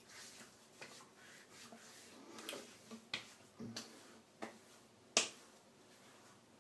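Hands slapping and patting witch hazel onto wet skin of the face and scalp: several short, sharp smacks spread out, the loudest about five seconds in.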